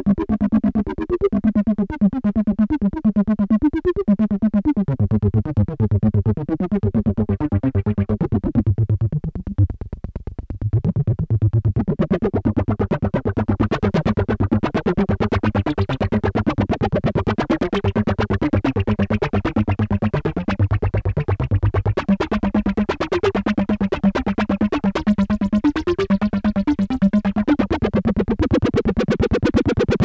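Behringer Poly D analog synthesizer playing a fast, repeating step-sequencer pattern through its built-in distortion, while the filter is swept by hand so the tone keeps opening and closing. Deeper bass notes join about five seconds in and drop out about two-thirds of the way through, and the sound thins briefly around ten seconds.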